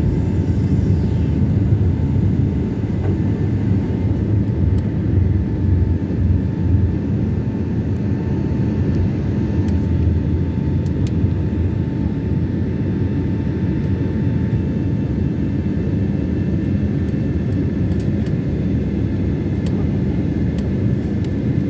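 Airliner engines and rushing air heard inside the cabin during the climb after takeoff: a steady, low, even noise with a faint steady whine above it.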